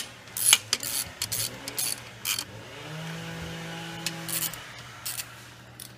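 Ratchet wrench clicking in short, quick strokes as it tightens a bolt on a supercharger intake manifold. The strokes come thick in the first two seconds, then thin out to a few, with a brief low hum in the middle.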